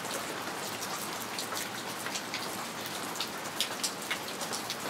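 Steady rain falling, an even hiss dotted with many sharp drops striking close by.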